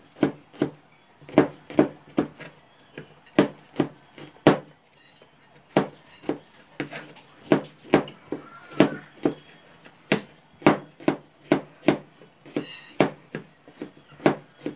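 Kitchen knife slicing garlic cloves on a plastic cutting board: a run of sharp knocks, about two a second and unevenly spaced, each one the blade striking the board.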